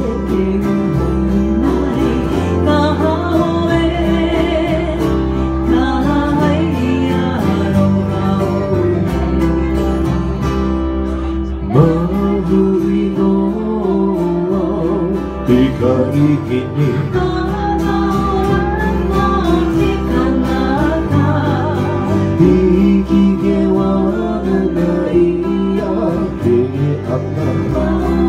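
Live Hawaiian-style band playing a song: strummed acoustic guitars and ukuleles under a bass line, with a singing voice carrying the melody.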